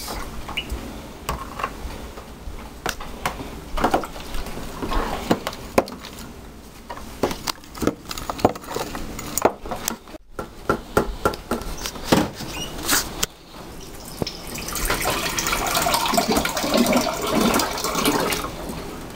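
A metal spoon clinking and scraping against a plastic container, a string of sharp taps while Jello is stirred. About fifteen seconds in, water runs from a dispenser into a glass for a few seconds.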